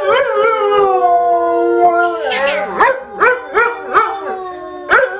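An English setter howling along with a woman's imitation howl: long held howls for about two seconds, then a quick run of short rising howls, about two or three a second.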